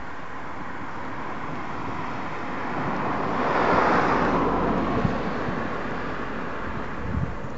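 A car passing along the street, its tyre and engine noise rising to a peak about four seconds in and then fading away, over a steady outdoor background.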